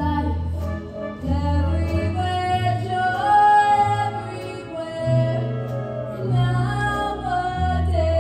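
A woman singing a slow show tune over band accompaniment, with held, wavering notes and a bass line alternating between two low notes.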